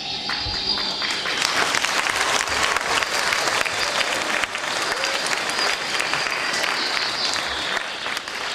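Theatre audience applauding, a dense run of clapping that swells about a second in and holds until it eases off near the end.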